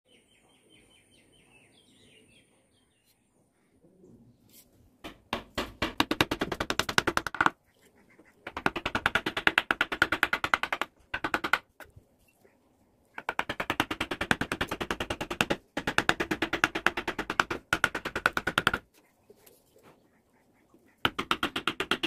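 Rapid, even taps of a mallet driving a carving gouge through teak, about eight to ten strikes a second, in runs of two to three seconds with short pauses. Faint bird chirps are heard before the tapping starts.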